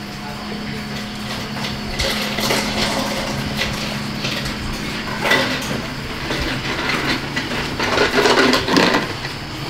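Crunching and scraping of a knife and utensils working through the crackling skin of a whole roast suckling pig, in irregular clusters that are loudest near the end, over a steady low hum.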